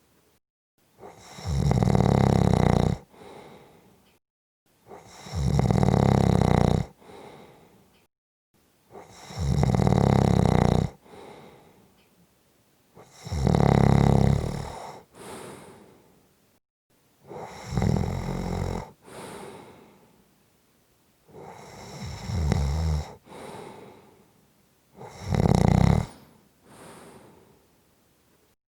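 A person snoring in an even rhythm: seven loud snores about four seconds apart, each lasting about a second and a half and followed by a quieter breath.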